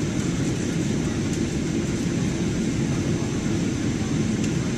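Airliner's jet engines and airflow making a steady, even, low-pitched noise with no change in level, as on a takeoff or climb.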